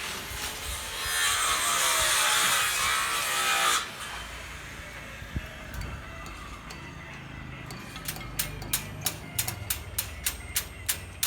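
A power tool cutting for about three seconds near the start, its pitch sagging under load, followed by a run of sharp, evenly spaced taps, about three a second, in the last few seconds.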